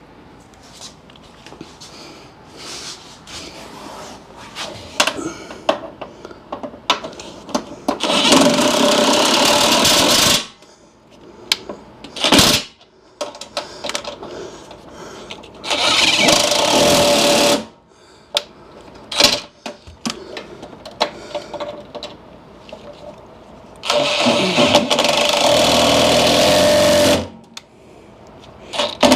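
Cordless power driver with a socket extension run in three bursts of two to three seconds each, driving in the grille's mounting bolts, with small clicks and knocks of tool handling between the bursts.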